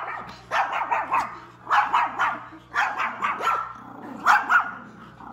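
Pomeranians barking: short, high-pitched yaps in quick bunches of two or three, about one bunch a second.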